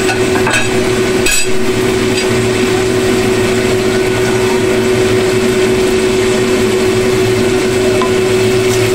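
Eggplant, egg and green chilli frying in a wok, a steady sizzle over a constant hum. One sharp knock about a second and a half in.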